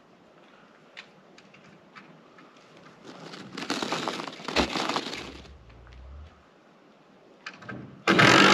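Tom turkey strutting close by: feathers rustling, then a sharp spit followed by a low drumming hum of about a second and a half. A loud rustling burst comes near the end.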